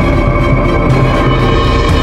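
Loud background music: held tones over a heavy, continuous low rumble, in a dramatic soundtrack style.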